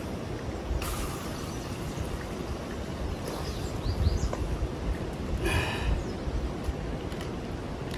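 Wind rumbling on the microphone, with a few short bird chirps around the middle.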